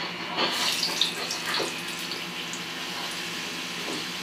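Tortilla chips frying in hot oil: a steady sizzle, with a few light clicks in the first second and a half.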